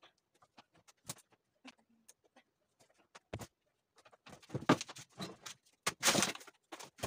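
Sparse clicks and light clinks of wire clothes hangers being lifted off a cabinet's hanging rail, growing into a busier clatter from about four seconds in, with a louder scrape and knock of a long metal rod against the cabinet shelf about six seconds in.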